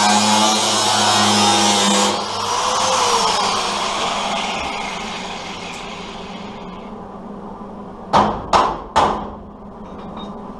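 A loud power tool running, shut off about two seconds in and fading away over the next few seconds. Then three quick hammer taps on sheet metal, about eight to nine seconds in.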